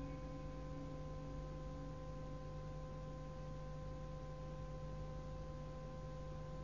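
Faint steady hum of several held tones over hiss from an old Quran-recitation tape, in a pause between verses; the reciter's last note dies away in the first second or two.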